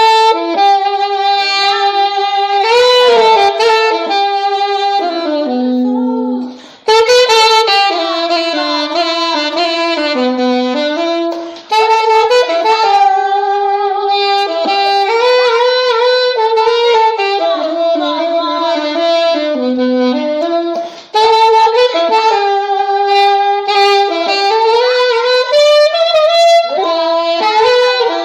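A solo saxophone plays a slow melody in phrases of several seconds. It breaks off briefly three times, about a quarter of the way in, before halfway and about three quarters through.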